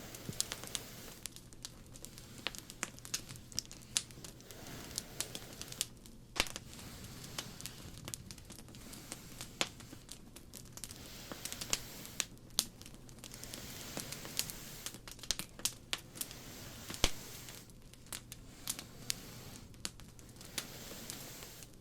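Fireplace crackling: irregular sharp pops and snaps over a soft steady hiss.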